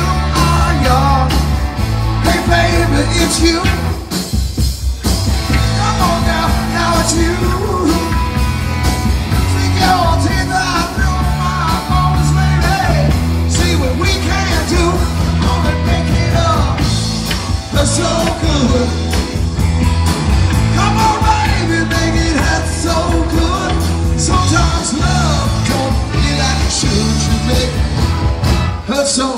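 Live rock band playing amplified electric guitars, bass guitar and drums, with a singer. The bass and drums drop out briefly about four seconds in before the full band comes back.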